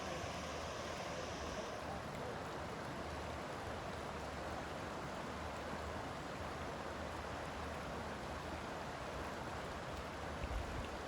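Steady rushing of a river's flowing water, with a higher hiss that drops away about two seconds in.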